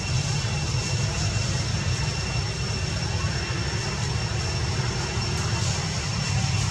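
Steady outdoor background noise: a continuous low rumble with two thin, steady high-pitched whines above it, unchanging throughout.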